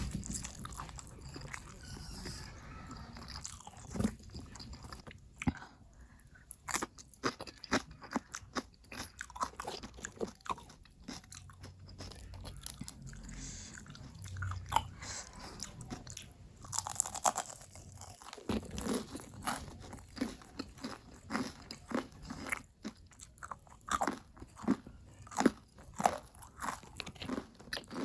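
Close-miked eating: crunching bites and chewing of crispy battered fried chicken, in quick irregular crackles.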